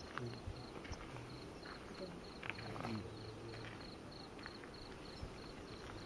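A cricket chirping steadily, about three short chirps a second, with scattered faint calls from other animals behind it.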